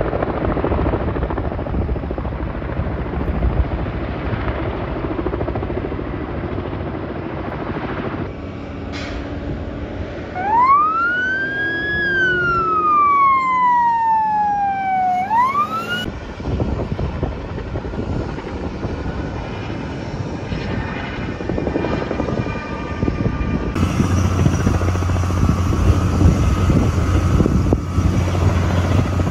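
An emergency vehicle siren wails for about five seconds near the middle, rising, falling slowly and rising again, then cuts off abruptly. Under it and around it is a steady engine rumble.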